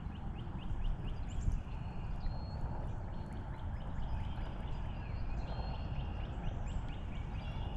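Outdoor pond-side ambience: a steady wash of wind-like noise with low rumble, and birds calling with short high chirps now and then.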